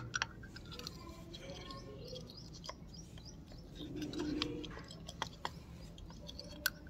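Sparse small clicks and light metal knocks from the opened pump head of a Symbol single-stage rotary vane vacuum pump as it is handled and turned by hand.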